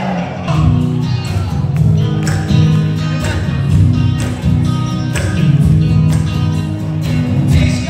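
Live rock band playing the instrumental opening of a song: electric guitar and bass over a steady drum beat.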